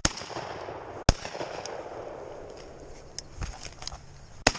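Three shotgun shots: one at the start, a louder one about a second in, and a third near the end, fired at ducks flying in.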